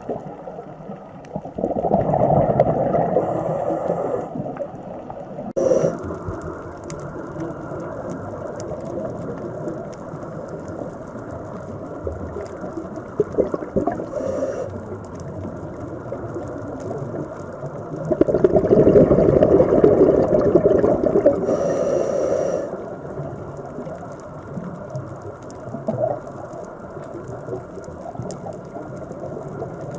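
Underwater ocean ambience: a low, rushing water sound that swells louder a couple of seconds in and again past the middle, then eases back.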